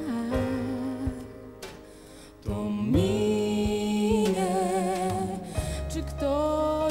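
Live acoustic band music: plucked acoustic guitar, then from about two and a half seconds in a woman singing long held notes with vibrato, joined near the end by deep double-bass notes.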